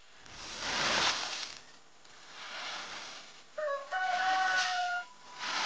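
Rice paddy sliding and pouring off tilted bamboo drying mats: a rushing hiss that comes in waves, loudest about a second in and again near the end. A rooster crows once, about four seconds in.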